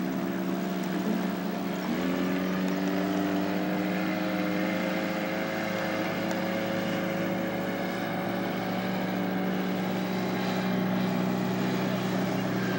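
2002 Penn Yan Swift motorboat's engine running, its revs stepping up about two seconds in and then creeping slowly higher.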